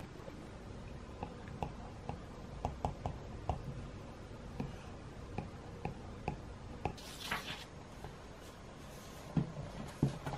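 Light, irregular taps and clicks of small objects being handled, with a short rustle about seven seconds in and a couple of firmer knocks near the end.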